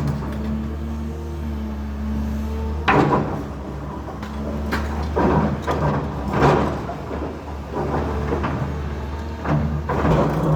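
A heavy engine running with a steady low hum, with irregular knocks, clanks and rattles over it, loudest about three seconds in and again about six and a half seconds in.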